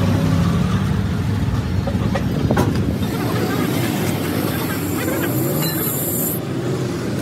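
Busy roadside traffic with vehicle engines running steadily, and a high hiss starting about three seconds in that cuts off sharply about three seconds later.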